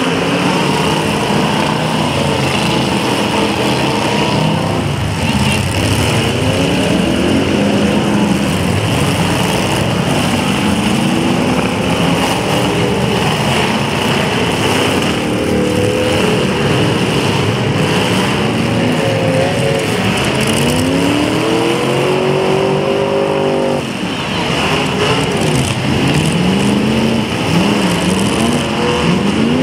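Several demolition derby cars' engines revving hard together, their pitches rising and falling over and over as the cars accelerate and back off. The engine noise dips briefly about three-quarters of the way through.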